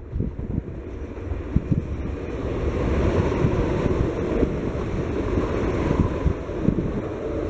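Approaching TER electric multiple unit, its rolling noise swelling from about a second in as it nears and passes, with gusts of wind buffeting the microphone.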